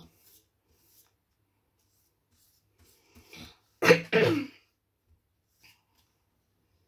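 A young girl coughing twice in quick succession into the collar of her hoodie, about four seconds in.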